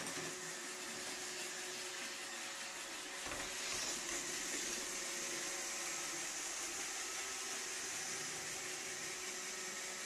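iRobot Roomba 761 robot vacuum running: a steady whir and hiss from its motor and brushes. About three and a half seconds in there is a brief low thump, and the sound grows a little louder and brighter as it rolls onto bare hardwood floor.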